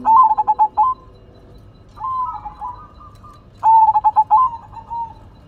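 Zebra dove (perkutut), a silver colour variety, cooing in three phrases. Each phrase is a quick run of short clipped notes, and the first and last phrases are the loudest.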